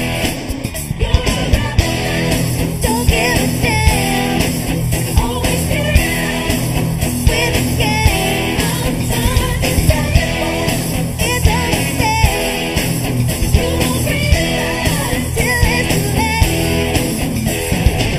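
Live band playing a rock song: electric guitar and drums on a steady driving beat, with singing over it.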